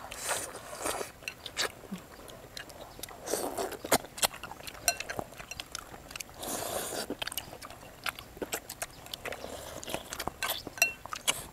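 People eating chicken curry: chewing and slurping, with three longer slurps of broth and noodles, and many small clicks of spoons and chopsticks against bowls.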